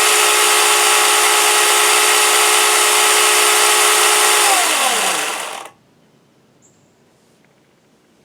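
Hart cordless battery chainsaw running flat out with no load: a steady electric-motor whine. It is released about four and a half seconds in, and motor and chain wind down with falling pitch to a stop about a second later. This is a free-running test to check that the saw runs and the chain is being oiled.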